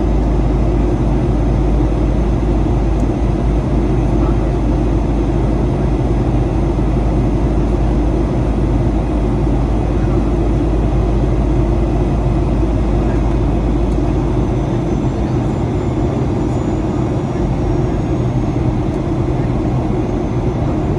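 Cabin noise inside a Boeing 737-800 in flight: a steady roar of engines and airflow with a deep rumble that eases about two-thirds of the way through.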